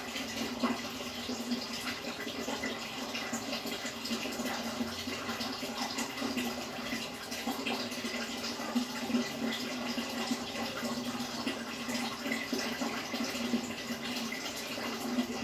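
Aquarium water running and bubbling steadily, as moved by the tank's filtration, with a steady low hum underneath.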